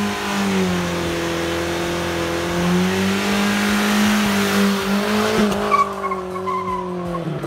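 Nissan D21 Hardbody pickup doing a burnout: the engine is held at high revs while the rear tyres spin and screech on the pavement. A higher-pitched tyre squeal comes in over the last couple of seconds, and the revs drop right at the end.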